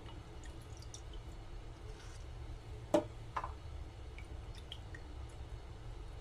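Fingers handling soaked wood ear (black fungus) in a bowl of water, with small drips, splashes and squishes. There is one sharp knock against the bowl about three seconds in, over a low steady hum.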